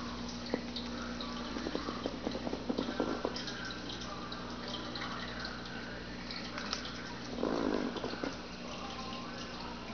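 Aquarium water bubbling and splashing over a steady low pump hum. A flurry of small pops comes about two seconds in, and a short louder burst near the end.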